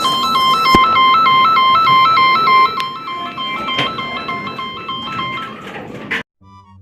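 Electronic two-tone warbling alarm of a railway emergency stop button, flipping quickly back and forth between two high pitches over background noise. It stops a little before the end, and the sound then cuts off abruptly.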